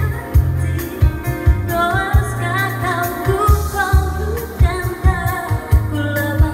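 A woman singing a pop song live over a Yamaha keyboard playing chords with a steady programmed drum beat, amplified through PA speakers. The keyboard plays alone at first and her voice comes in about two seconds in.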